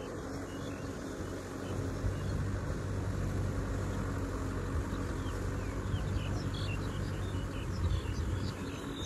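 Kubota M6040SU tractor's diesel engine running steadily, heard from across the field as the tractor cultivates the paddy. Short high chirps come in from about five seconds in.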